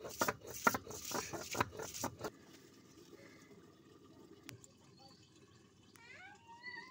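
A cylindrical stone pestle (nora) crushing raw onion pieces on a wet stone grinding slab (shil): quick crunching strikes, about four a second, for the first two seconds, then the grinding goes quiet. Near the end an animal call with a rising and falling pitch starts.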